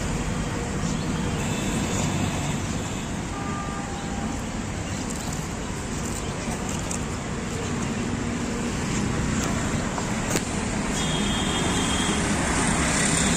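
Steady road traffic noise from a highway, with one sharp click about ten seconds in.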